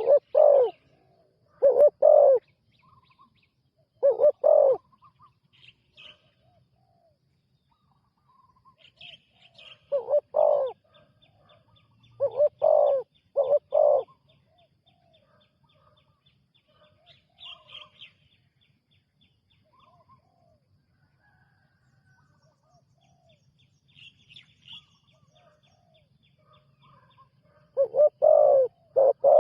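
Spotted dove cooing: short, loud, low coo phrases repeated in groups with pauses of several seconds between them. Faint chirps of other small birds sound in the gaps.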